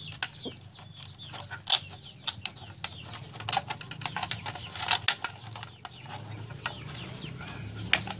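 Scissors snipping through a plastic container: a run of irregular sharp snips. Chickens cluck faintly in the background.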